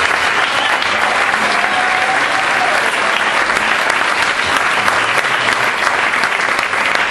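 Audience applauding steadily, a dense patter of many hands clapping, as a dance couple is welcomed onto the floor.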